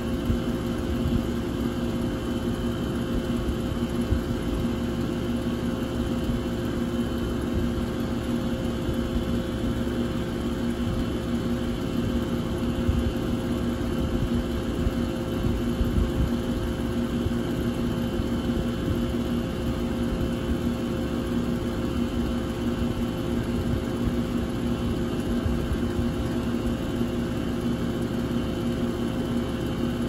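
2001 York 2-ton air conditioner running steadily: a continuous hum with several held tones over a low rumble, unchanging throughout.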